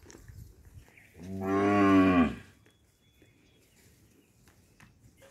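Khillar cattle mooing: one deep moo about a second long, starting about a second in and dropping in pitch at the end.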